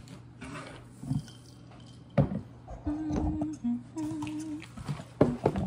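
A woman humming a tune in held, stepping notes, starting about three seconds in, with a couple of sharp knocks around it.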